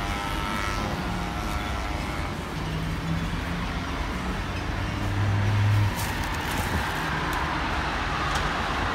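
Road traffic on wet asphalt: cars passing with tyres hissing on the wet road, and a vehicle's engine hum swelling briefly about five seconds in.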